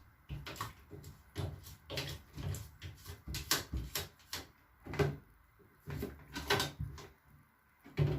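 Irregular light knocks, clicks and rubbing of small hard objects being handled, about a dozen short strikes.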